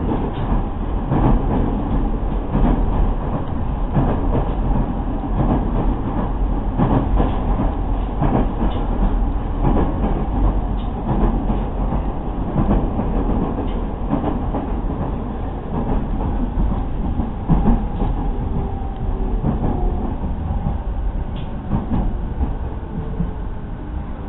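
Running noise inside a JR 209 series electric commuter train at speed: a steady rumble with the repeated clickety-clack of wheels over rail joints. It grows a little quieter near the end as the train slows for a station.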